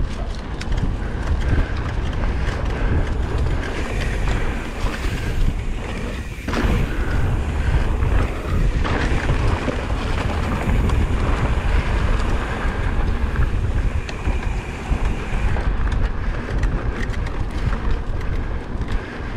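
Mountain bike riding along a trail, heard as heavy wind buffeting on a bike-mounted GoPro's microphone, with scattered knocks.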